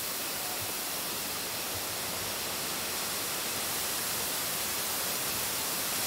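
Sekumpul Waterfall's falling water rushing as an even, unbroken hiss.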